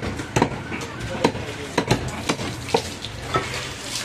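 Butcher's cleaver chopping mutton on a wooden log chopping block: a string of sharp chops, roughly two a second, over a steady background hiss.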